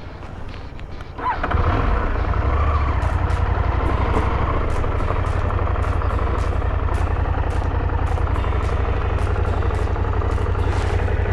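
KTM 890 Adventure R's parallel-twin engine running at low speed, rising in level about a second in and then holding steady with a deep, even pulse as the bike rolls up to a fuel pump and stops.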